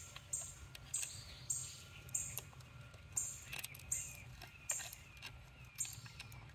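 High-pitched buzzy chirping, pulsing steadily a little under twice a second, typical of a calling insect. Faint bird chirps and a few light clicks sound behind it.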